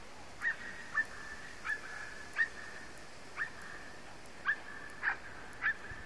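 An animal calling: a thin, high, steady whine, broken by eight short falling cries about once a second.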